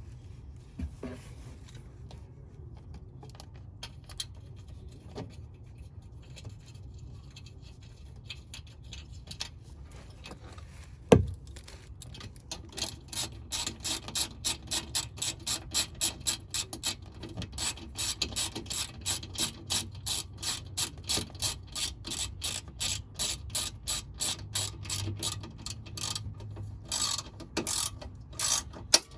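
A ratchet wrench being worked in steady back-and-forth strokes, clicking two to three times a second. It follows a single sharp knock.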